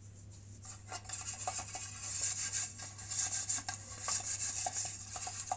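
Flour being shaken and rubbed around inside an oiled aluminium cake tin to coat it before the batter goes in: a dry rustling hiss with small ticks and taps, starting about a second in.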